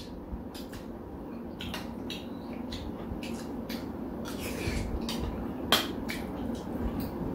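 Metal spoons tapping and scraping in bowls of curry, along with small mouth sounds of eating: a scatter of short clicks, one louder near the six-second mark, over a steady low hum.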